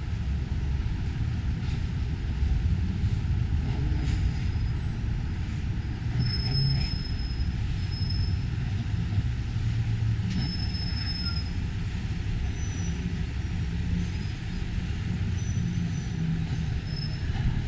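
Steady low rumble of vehicles in the street, with a few brief, faint high-pitched squeals scattered through it.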